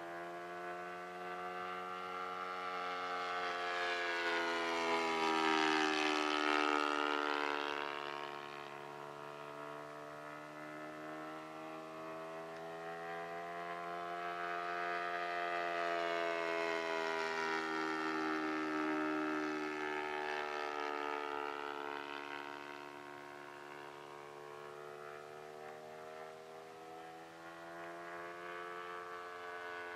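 Saito FG-20 single-cylinder four-stroke gasoline engine of a large RC model Cessna 182 in flight, a steady drone whose pitch and loudness rise and fall as the plane flies past, loudest about six seconds in and again around sixteen to nineteen seconds in.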